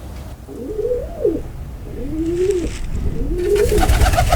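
Domestic pigeon cooing: three low coos, each gliding up and then down. A low rumble runs underneath, and there is a burst of rustling noise near the end.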